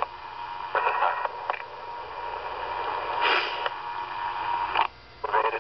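RadioShack handheld police scanner hissing with radio static and a faint steady tone between transmissions, with a few short bursts of noise, about one second in and around three and a half seconds in, as channels key up and drop.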